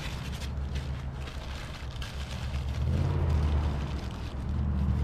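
Vehicle engine idling with a steady low hum, with paper crinkling and crackling near the start as a bee smoker is being lit. A louder low rumble comes in about three seconds in.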